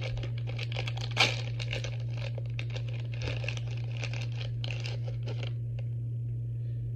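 Plastic wrapper of a Stuffed Puffs marshmallow crinkling as it is torn open by hand, with a sharp tear about a second in. The crinkling stops about five and a half seconds in. A steady low hum runs underneath.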